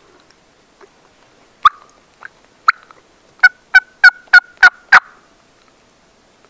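Turkey yelps: three scattered short, sharp notes, then a run of six evenly spaced yelps that ends about five seconds in.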